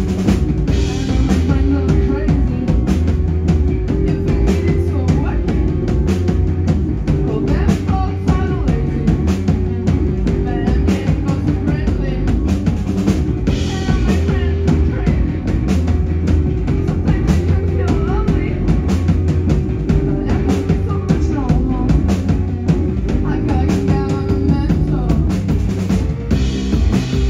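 Live band playing a song: a steady drum-kit beat and electric guitar, with a woman singing at times.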